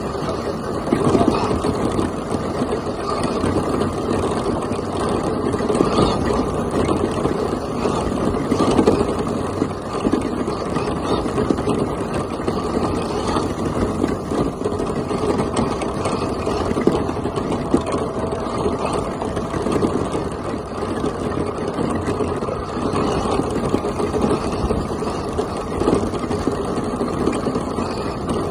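Traxxas Stampede RC monster truck driving over a gravel road, heard from a camera mounted on its body: a steady, unbroken rush of electric motor, drivetrain and tyre noise.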